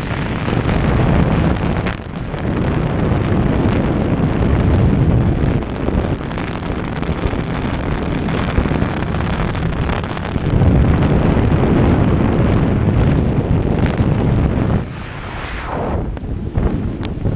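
Jet boat running at speed, its engine noise and rushing water mixed with heavy wind buffeting on the microphone. The sound eases off briefly near the end.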